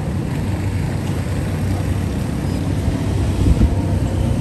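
Steady low rumble of a motor vehicle's engine running on the road close by, with a brief low bump about three and a half seconds in.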